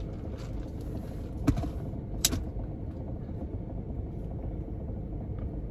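Steady low rumble of a car heard from inside its cabin, with two short sharp clicks about a second and a half and just over two seconds in.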